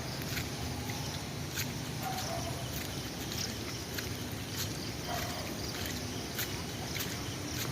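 Steady rain falling, with irregular sharp drop taps on hard surfaces. Two faint short calls come through, about two and five seconds in.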